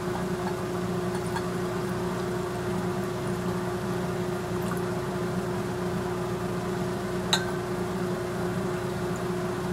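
Liquid poured from one glass beaker into another over a steady low hum, with one short glass clink about seven seconds in.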